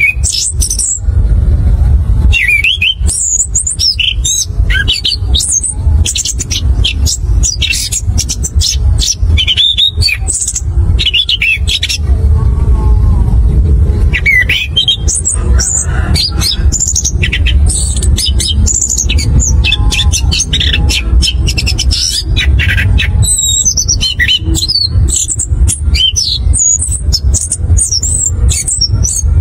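Chestnut-capped thrush (anis kembang) singing its fast, varied song of high chirps, trills and whistled phrases, with brief pauses, over a steady low rumble of background noise.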